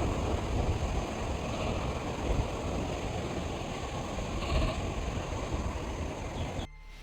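Steady rushing noise, strongest in the low end, that cuts off suddenly near the end.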